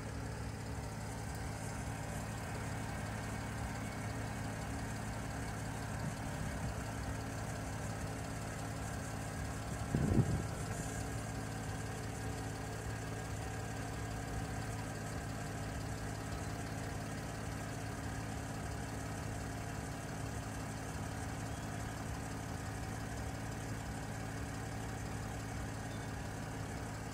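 Mercedes GL (X164) engine idling steadily, with a single short thump about ten seconds in.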